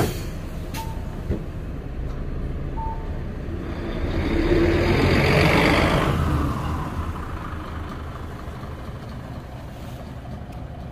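Mitsubishi Fuso Aero Star diesel city bus pulling away from a stop and driving past, its engine and tyre noise swelling about four to six seconds in and then fading as it moves off.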